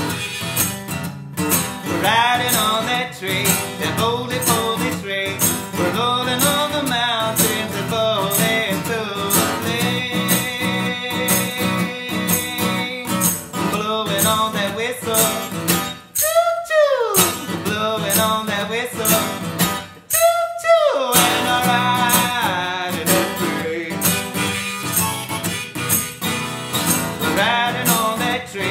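Solo acoustic guitar strummed, with harmonica from a neck rack and singing. Twice, about halfway through, a note swoops up and back down.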